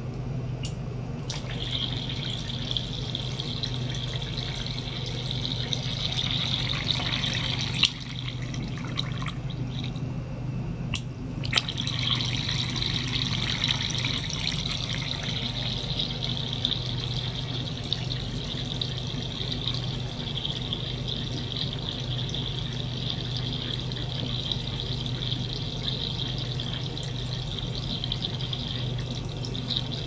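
Water from a small circulation pump's tube splashing and trickling into a glass bowl over a steady low pump hum. The splashing drops away about 8 seconds in and comes back sharply about 11 seconds later, with a few clicks around those breaks.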